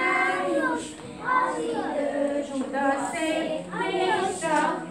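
A group of young children singing a Hungarian song together, with women's voices joining in.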